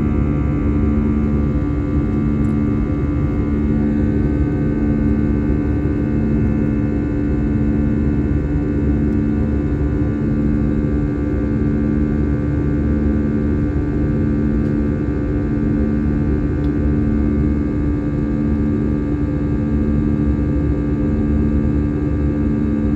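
Cabin noise of an Airbus A320-family jetliner in flight: a steady low rush of engine noise and airflow with several steady hum tones. One low hum swells and fades about once a second.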